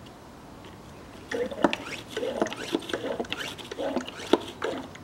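Hand pump of a garden pressure sprayer being worked to push automatic transmission fluid into the gearbox: a run of squeaking pump strokes with sharp clicks, starting about a second in.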